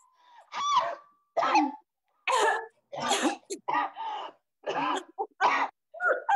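People coughing, choking and gasping in a run of short, loud bursts, one after another, with no words.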